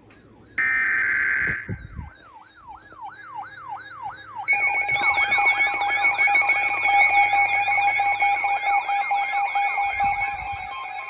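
The end of an EAS digital header burst, a buzzing data tone, is followed about two seconds in by a weather alert radio's warbling siren-like alarm at about three sweeps a second, signalling an incoming warning. At about four and a half seconds steady alert tones join and the alarm grows louder, several alarms sounding at once.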